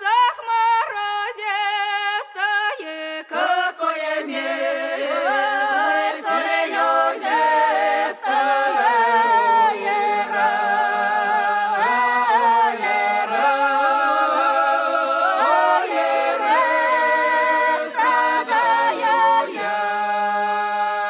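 Unaccompanied Russian village folk singing (a strádania song) by a small group of voices: short sung phrases at first, then several voices in harmony from about three seconds in, settling on held notes near the end.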